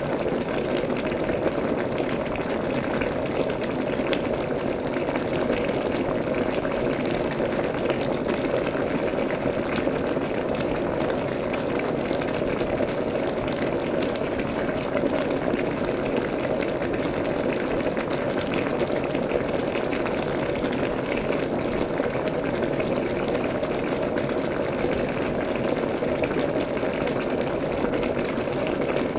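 Water boiling steadily: a constant bubbling with small pops scattered through it.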